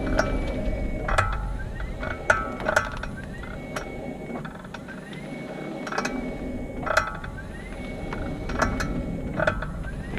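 Repeated sharp mechanical clicks and clunks from the front driver's-side wheel area of a 2018 Nissan Leaf, about seven, come as the car creeps off and stops in ePedal. A whine rises and then holds several times as it moves off, over low rumble. A technician linked the clicking to a spline in the front drive.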